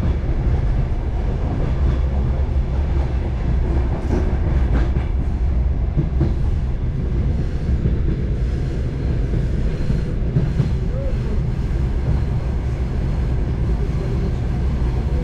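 Railway passenger coach in motion, heard from inside: a steady low rumble of the wheels on the track, with a few sharp clacks over rail joints.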